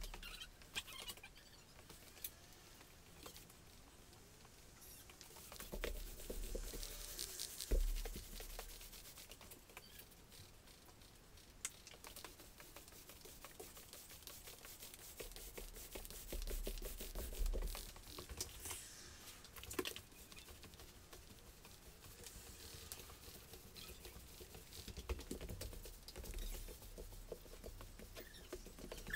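Roller spreading wet water-based contact adhesive across a bare countertop: a faint, sticky crackle of many small clicks, with a few soft low thumps.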